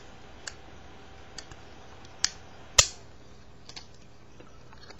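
Sharp metal clicks and snaps from a Winchester multi-tool as its folding implements are swung out and shut: a few light clicks, two louder snaps around the middle, the second the loudest, then a run of faint ticks.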